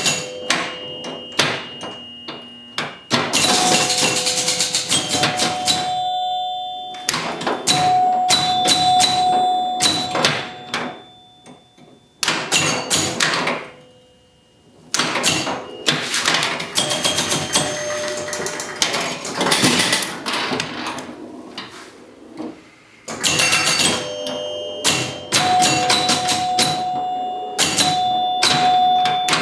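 1976 Gottlieb Surf Champ electromechanical pinball machine in play: its score chimes ring in quick runs over a steady clatter of clicks and clacks from the flippers, bumpers and relays. The play goes quieter twice, briefly, around the middle.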